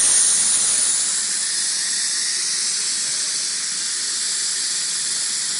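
Safety valves of a 5-inch gauge live-steam model Atlantic locomotive blowing off in a steady, high-pitched hiss, the sign that the boiler is at full working pressure.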